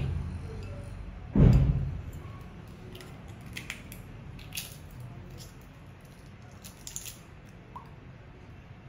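An egg being cracked open by hand over a ceramic plate, with a fork held against it. There is one dull knock about a second and a half in, then a few light clicks and crackles as the shell is pried apart.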